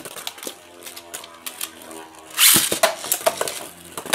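Two Beyblade Burst spinning tops, Legend Spryzen and Drain Fafnir, whirring and clattering against each other and the plastic stadium walls in rapid clicks, with a louder rasping burst about two and a half seconds in.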